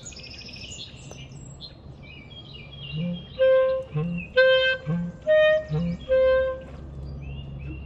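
Birds of the dawn chorus chirping and twittering, joined about three seconds in by a clarinet playing a run of short, repeated notes, each led by a quick lower note.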